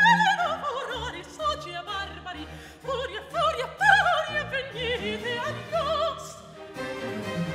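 Soprano singing a baroque aria with fast coloratura runs and wide vibrato, accompanied by a small baroque band with repeated bass notes. Shortly before the end the voice stops and the band plays on.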